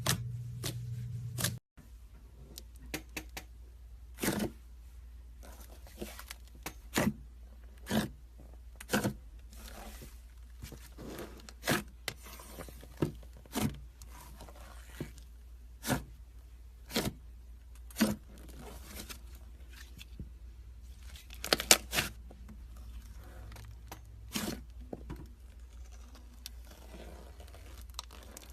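Slime being squished and poked by hand, giving sharp wet clicks and pops about once a second, over a faint steady low hum.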